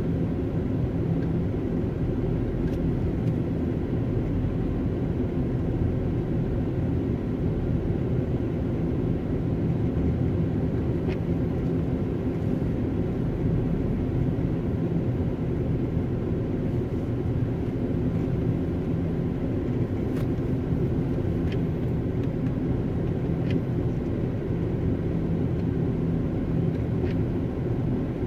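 Steady low rumble inside a car's cabin: engine and road noise while crawling in slow stop-and-go traffic.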